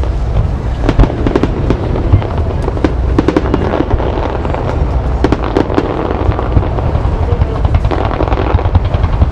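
Aerial fireworks shells bursting in quick succession: a dense run of sharp reports and crackling over a low rumble, with several bangs every second.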